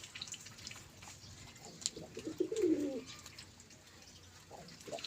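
Domestic pigeons cooing: one low coo about two seconds in and another starting near the end.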